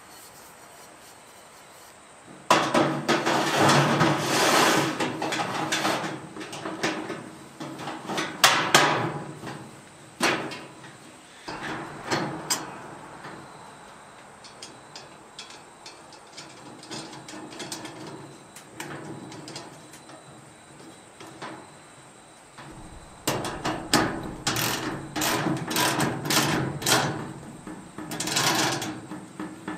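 Steel pipes knocking and clattering against each other and a steel toolbox as a pipe frame is handled and clamped together. The clatter comes in two busy spells, one starting a couple of seconds in and one near the end, with scattered lighter knocks in between.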